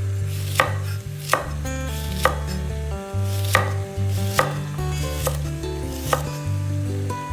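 A knife chopping on a cutting board, single strokes at an uneven pace of about one a second, over background music with a steady bass line.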